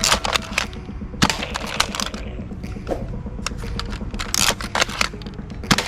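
Irregular sharp clicks and knocks of hard plastic toy guns being handled.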